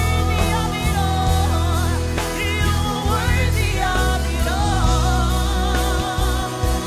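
Gospel worship music: a singer's voice wavering with vibrato over a band with heavy bass and a steady drum beat.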